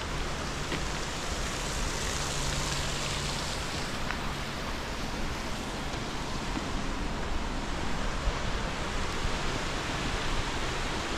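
Steady rushing of a mountain river in the gorge below.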